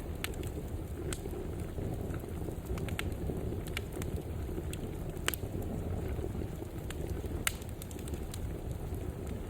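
Fire burning in a fireplace: a steady low rumble of the flames with scattered sharp crackles and pops, the loudest about five and seven and a half seconds in.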